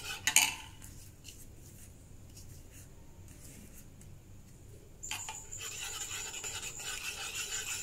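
Metal spoon beating egg batter in a bowl. There are a couple of sharp clicks against the bowl near the start, then a quieter stretch with faint taps. Steady scraping and swishing follows from about five seconds in.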